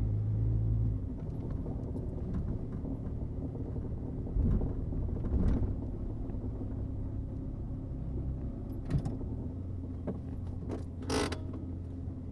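1979 Mercury Zephyr sedan with a steady low rumble, with creaks and a couple of low thumps from the car. A short, louder creak comes near the end.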